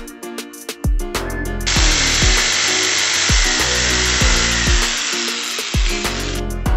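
An electric jigsaw cutting through a plywood board, starting about two seconds in and running steadily for nearly five seconds before stopping near the end. Background music with a steady beat plays throughout.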